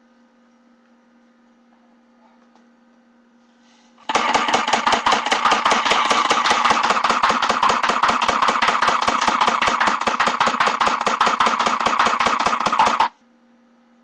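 AUG airsoft gun firing on full auto: a rapid, even stream of shots lasting about nine seconds, starting about four seconds in after a pause with only a faint hum.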